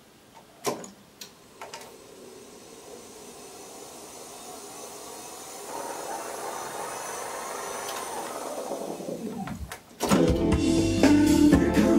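Studer A80/R reel-to-reel tape recorder: a few transport clicks, then the tape rewinding with a quiet whir that rises as the reels speed up and falls away as it brakes to a stop, its tension-roller bearings freshly replaced. About ten seconds in, demo music recorded on the tape starts playing back, louder than the winding.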